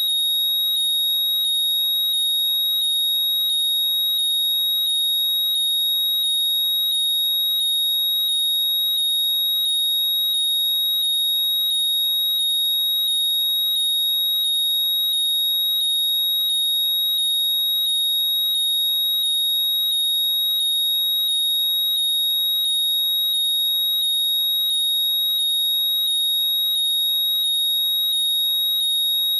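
Apple AirPods' Find My locating sound: a loud electronic alert with a steady high tone and quickly repeating rising chirps, looping without a break.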